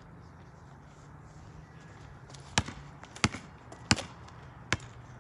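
A basketball being dribbled on an asphalt driveway: four sharp bounces about two-thirds of a second apart, starting about halfway in.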